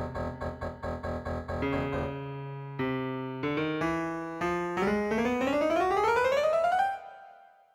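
Piano playback from the Synthesia app: fast repeated chords, then a held chord and single notes stepping upward, then a quick rising run of notes that stops about seven seconds in and dies away.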